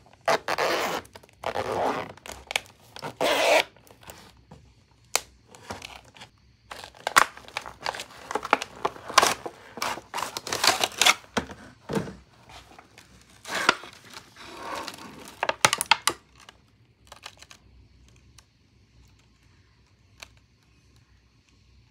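A Barbie doll's vinyl zip pouch and clear plastic tray being handled and torn open: a run of crinkles, rustles and short rips that stops about sixteen seconds in.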